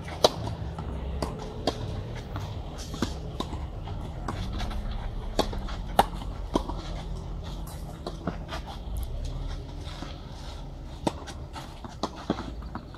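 Tennis rally on a clay court: a string of sharp pops from rackets striking the ball and the ball bouncing, opening with the loudest pop, the serve, about a quarter second in.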